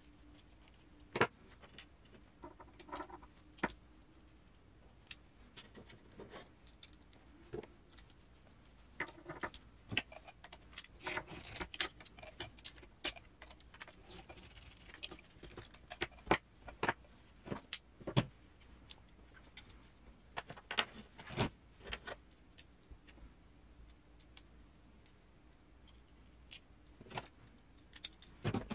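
Irregular clicks and clinks of small metal parts and a hex driver as M3 screws and nuts are fitted to the metal chassis rails of a 1/10 RC crawler kit, busiest in the middle.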